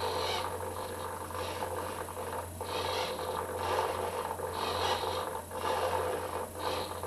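Model-aircraft servo driving an aileron through its push rod and linkage, giving short whirring bursts of gear-motor noise about once a second as the aileron is swung up and down.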